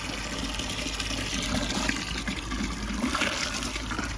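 Garden hose running steadily into a plastic barrel partly full of liquid manure, the stream splashing into the liquid's surface.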